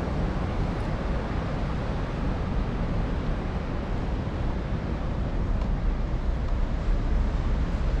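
Steady low rumble of wind buffeting a handlebar-mounted GoPro's microphone, mixed with the tyre noise of an Apollo Explore electric scooter rolling over concrete paving.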